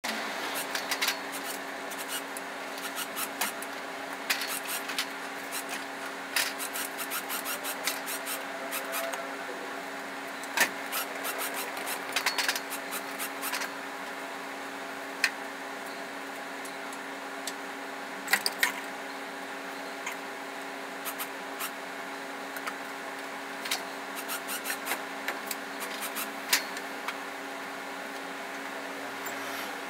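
Scattered metallic clinks and knocks from hands and tools working an engine down from a hydraulic engine hoist into the engine bay, over a steady hum.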